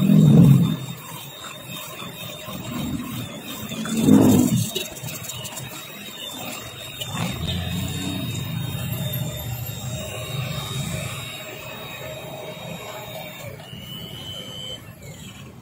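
Small handheld electric mixer running steadily with a high whine, its twin beaters churning through a large basin of thin martabak manis batter. Two louder low bursts come about half a second in and around four seconds.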